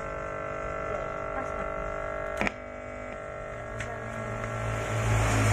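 Hand-built miniature amplifier's speaker giving a steady electrical hum and buzz made of several held tones, with one sharp click about two and a half seconds in and a deeper hum swelling louder near the end: unwanted noise from the home-made power circuit.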